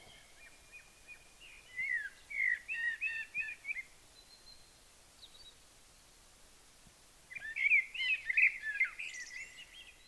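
Common blackbird singing: two warbled song phrases of quick, varied notes, the first about two seconds in and the second starting about seven seconds in.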